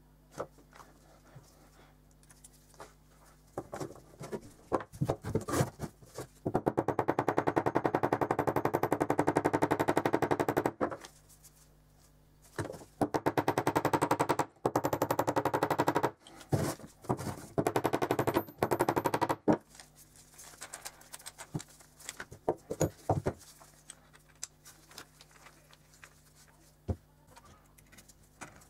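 Small hammer tapping rapidly on the hand drill's steel crank arm, in three runs of several seconds each. Scattered clicks of small metal parts being handled come before and after.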